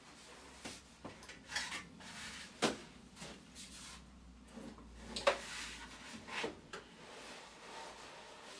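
Dell U2412M monitor and its stand being set down on a wooden desk shelf and shuffled into position: scattered knocks, clunks and rubbing, with two sharper knocks about two and a half and five seconds in.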